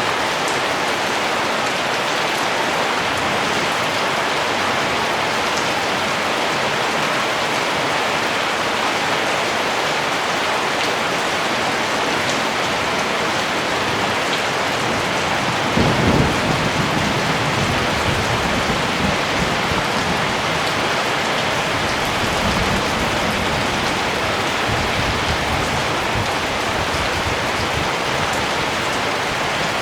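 Steady heavy rain hiss, with a roll of thunder that breaks in about halfway through and rumbles on unevenly for several seconds before fading back under the rain.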